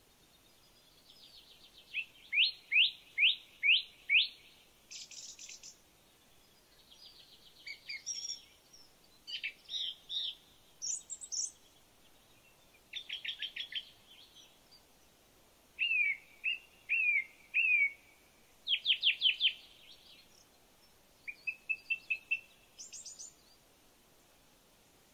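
A songbird singing: a string of varied, high phrases, each a quick run of the same note repeated three to six times, with pauses of a second or two between phrases. The loudest phrase, five sharp notes, comes a couple of seconds in.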